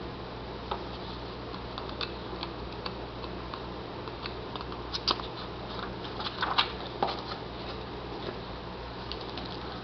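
Paper rustling as an instruction manual and warranty sheets are handled and their pages leafed through, with a cluster of sharper crinkles and flicks about five to seven seconds in. A steady low hum runs underneath.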